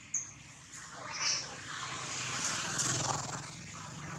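A baby macaque squealing in short, high-pitched cries, two of them in the first second and a half, over a low steady engine hum in the background.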